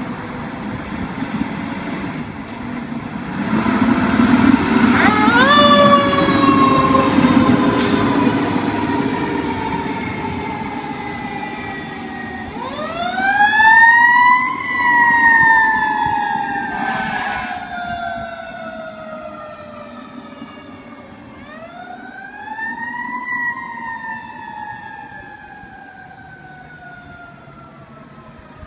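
Fire engine siren sounding as the engine pulls out and drives off. It winds up three times, each time rising quickly and then falling slowly over several seconds, with the truck's engine rumbling under the first rise.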